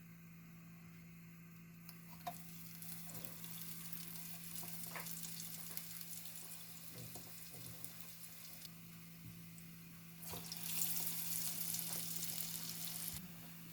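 Falafel balls frying in hot oil with a steady hiss. The sizzle starts about two seconds in, with a few small clicks, and grows louder from about ten seconds in before easing near the end, over a steady low hum.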